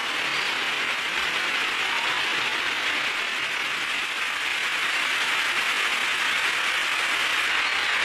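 Audience applauding: many people clapping at once, a dense, even, sustained sound.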